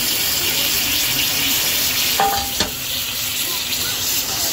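Cheese-filled naan sizzling steadily on a hot flat-top griddle under a grill press, with a brief scrape and knock about two seconds in.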